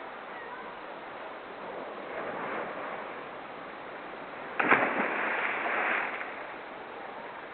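Ocean surf washing with wind on the microphone; about two-thirds of the way in a sudden, much louder rush of water lasts a second and a half.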